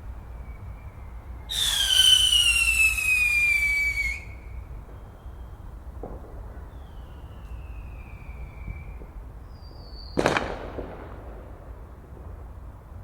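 Fireworks going off: a loud whistling firework screeches for about two and a half seconds, its pitch falling, then a fainter falling whistle follows, and about ten seconds in comes a single sharp bang.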